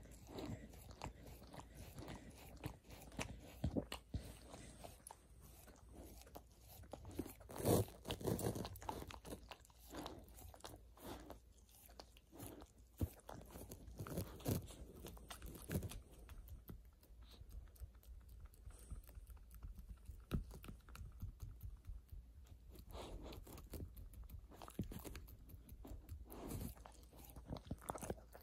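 Border collie chewing something hard, in irregular crunches with short pauses; the loudest crunch comes about eight seconds in, and there is a sparser spell in the middle.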